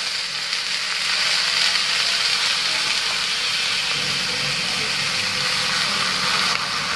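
Hot sizzler plate sizzling steadily as sauce is poured over the seafood and butter on it.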